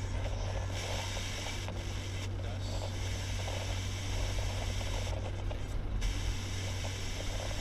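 Old van running on a road, heard from inside its passenger compartment: a steady low engine drone with road noise.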